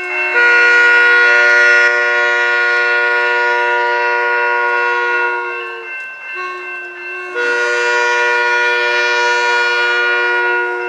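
SMART diesel multiple unit sounding its air horn as it approaches: two long blasts of a steady chord, the second starting about a second after the first ends.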